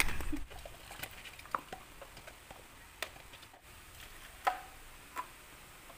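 Chocolate milk tea poured from a plastic measuring jug into a plastic cup over tapioca pearls: faint liquid splashing with a few light clicks of plastic cup and jug, the loudest about four and a half seconds in.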